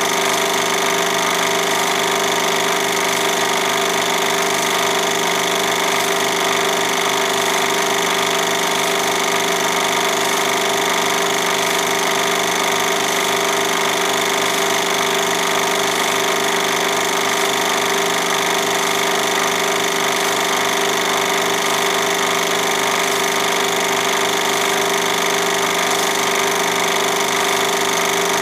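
Film projector running: a steady whir with a rapid, even clatter from its mechanism, unchanging throughout.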